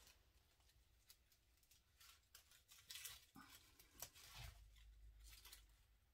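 Faint handling noises: a plastic zip tie being threaded through grapevine and pulled tight, heard as scattered soft clicks and rustles, with a faint low rumble about four seconds in.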